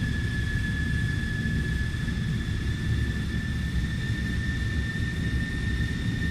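Airplane engines in flight: a steady low rumble with a thin, steady high whine over it.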